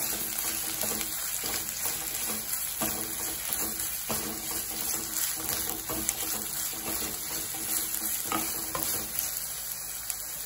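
Sliced onions sizzling in hot oil in a nonstick pan while a wooden spatula stirs them, with occasional light scrapes and taps of the spatula against the pan.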